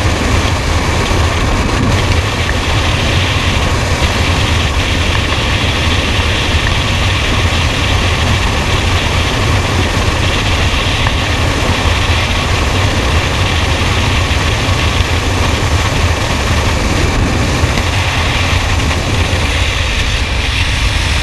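Heavy engine running loudly and steadily at a constant speed, with a deep low rumble.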